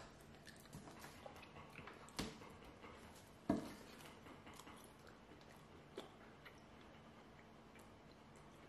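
Faint chewing, with a few sharp clicks of a metal fork against a foil takeaway tray, the loudest about three and a half seconds in.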